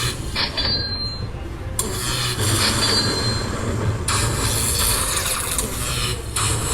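Slot machine tallying a bonus win, with chiming and clinking credit-count sounds over the constant electronic din of a casino floor.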